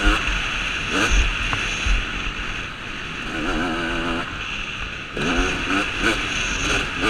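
A KTM 250 SX two-stroke motocross engine revving hard under the rider, its pitch sweeping up about a second in and again after five seconds, wavering and dropping back in between as the throttle comes on and off. Wind rushes over the helmet camera.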